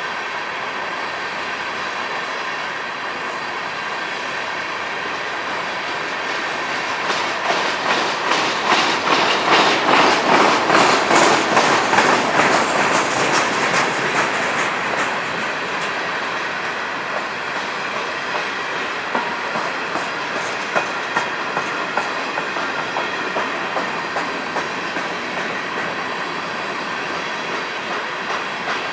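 Empty coal cars of a freight train rolling past, their steel wheels clacking over rail joints in a steady, even rhythm. It is loudest from about seven to fifteen seconds in, then eases off while the clacking carries on.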